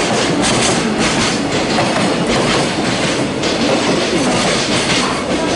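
Freight train of container flatcars passing at speed, its wheels clattering steadily over the rail joints in a continuous run of clacks.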